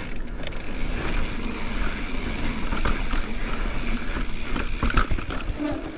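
Mountain bike rolling down a dry dirt singletrack: knobby tyres crunching over dirt and stones, with rattles and a few sharp knocks from the bike over rough ground. A steady low rumble of wind buffets the microphone throughout.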